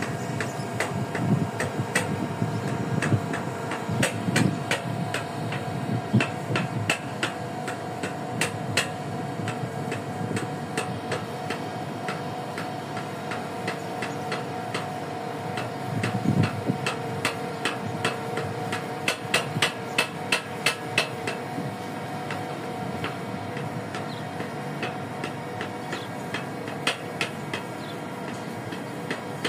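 Sharp metal clicks and clacks in irregular quick runs as longline branch lines are handled: their metal snap clips and swivels knock against the stainless steel line rail. Under them runs a steady machinery hum.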